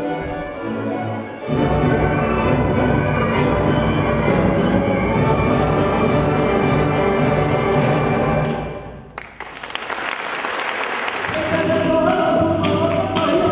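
Live orchestra playing music. The music fades away about nine seconds in, a sudden burst of noise follows, and another piece begins near the end.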